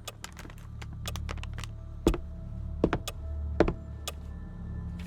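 Light clicks and taps of kitchen items and ingredient containers being handled on a counter, with three louder knocks about two, three and three and a half seconds in, over a low steady hum.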